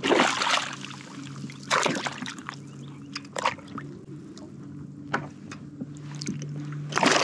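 Water splashing and sloshing against the side of a kayak as a hooked redfish thrashes at the surface and is grabbed by hand. It comes in about five separate splashes, over a steady low hum.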